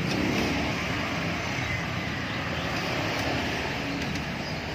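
Street traffic noise: motorbikes and other vehicles passing by, a steady mixed engine hum.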